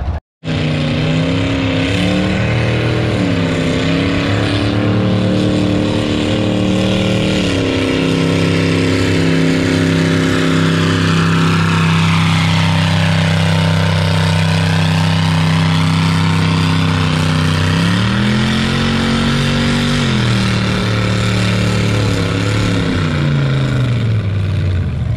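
Big-block Chevy V8 in a modified Massey 55 pulling tractor running hard under load as it drags a weight-transfer sled. Its pitch shifts in the first few seconds, holds steady through the middle, climbs again a few seconds before the end and then slides down.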